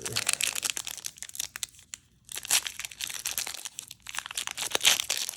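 Foil trading-card pack wrapper crinkling as it is handled, with a brief pause about two seconds in.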